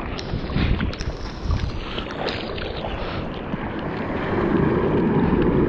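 Paddling arm strokes splashing through whitewater foam right beside a bodyboard-mounted camera, with the hiss and rush of surf. The rushing water grows louder about four seconds in.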